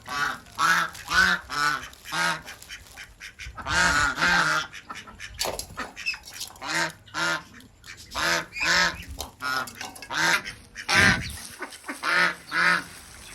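Ducks quacking over and over, short calls often coming in runs of two or three.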